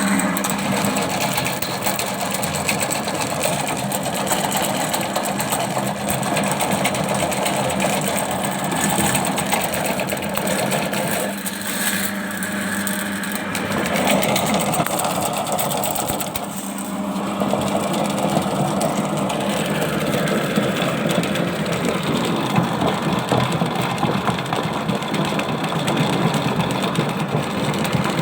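Electric drain-cleaning machine running steadily, its motor humming and its spiral steel cable rattling as it is worked into a clogged drain line.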